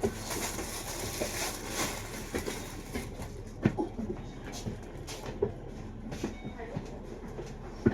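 Double-decker bus running: a steady low engine hum with frequent short knocks and rattles.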